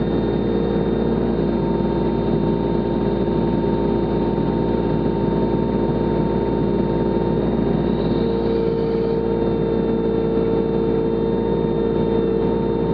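Takeuchi TB216 mini excavator's engine running steadily under digging load, with its hydraulics working the arm and bucket, heard up close from the boom. The engine note firms up slightly about eight seconds in.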